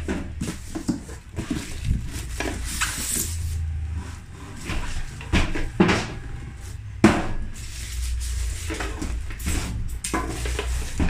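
Packaging handled as an inverter welding machine is lifted out of its cardboard box: a cardboard box, styrofoam end caps and a plastic bag rustle and scrape, with several sharp knocks, the loudest about five to seven seconds in. A steady low hum runs underneath.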